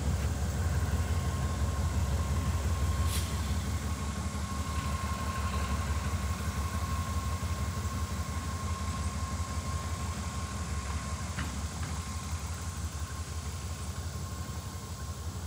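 Diesel locomotive engine running steadily as it hauls a tank car past, slowly growing fainter as it moves away.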